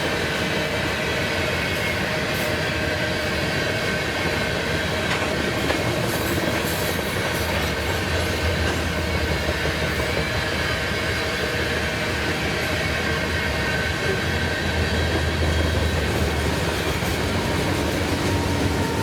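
Freight train rolling past, steel wheels running on the rails with a light clatter and a faint high squeal.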